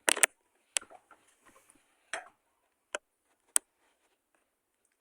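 A toy car being handled: scattered sharp clicks and taps, two close together at the start and then single ones further apart, with a short scraping rustle about two seconds in.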